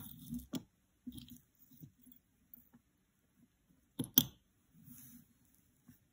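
Jewelry being handled on a cloth-covered tabletop: soft rustling and small ticks as a necklace of large round beads is laid out, with two sharp clicks close together about four seconds in as the beads knock down.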